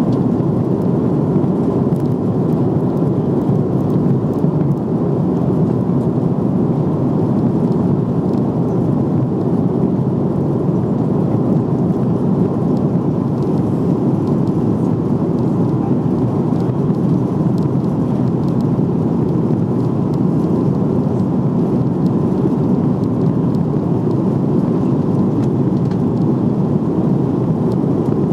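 Steady cabin noise inside an Airbus A340-300 on approach with flaps extended: an even, unbroken rush of airflow and engine noise with no distinct events.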